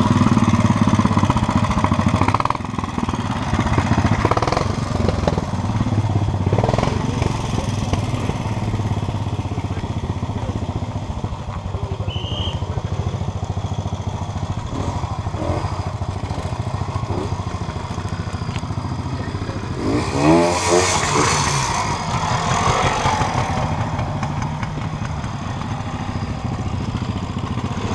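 Classic trials motorcycles running, idling and blipping as riders work through a rocky section. About twenty seconds in, one engine revs up sharply, the loudest moment.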